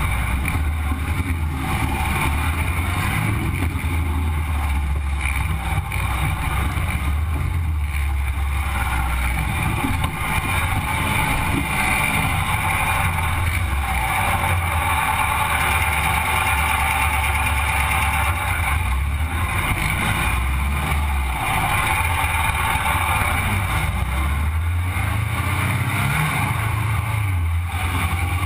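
Sandrail's engine running as it is driven along, a steady low drone. About three-quarters of the way through, the revs climb, then drop back.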